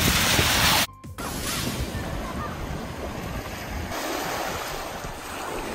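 Ocean surf breaking and washing ashore, a steady rush of noise that cuts out briefly about a second in before carrying on.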